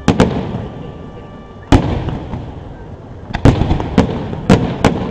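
Aerial firework shells bursting at close range: about eight sharp bangs. A pair comes at the very start, a single bang just under two seconds in, and a quick cluster in the last two seconds, each trailing off into a rumble.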